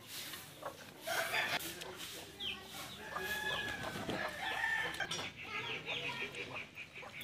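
Chickens clucking, ending in a quick run of short, repeated clucks.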